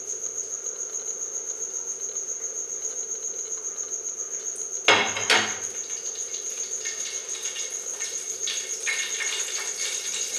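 A cricket chirping steadily in a high pulsing tone, about five chirps a second. About halfway through there is a sharp metal clank, then ghee heating in the steel kadai gives faint scattered crackles.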